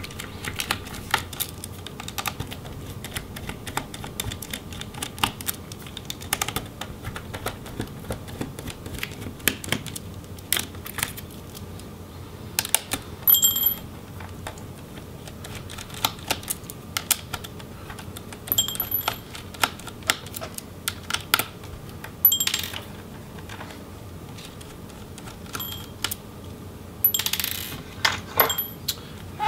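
Small Phillips screwdriver backing out tiny laptop hinge screws: irregular light clicks and taps of the driver and hands on the metal and plastic chassis. Several times in the second half a small loose screw clinks down with a brief metallic ring.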